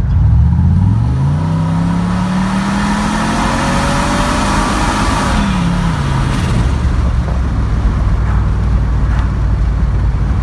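Boosted LSX V8 in a GMC Canyon pulling hard at full throttle, the engine note climbing for about four and a half seconds, then dropping sharply before settling into a steady drone. The run makes only about 11 psi of boost, which the owner takes for another boost problem, possibly a cracked intake.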